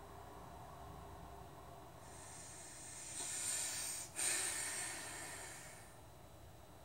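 A person breathing heavily through the nose close to the microphone: one long breath that builds up over about two seconds, a brief break, then a louder breath that fades away over the next two seconds, like a deep sigh.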